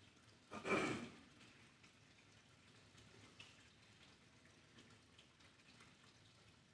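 Quiet church room tone, broken once about half a second in by a single short noisy sound lasting about half a second, followed by a few faint ticks.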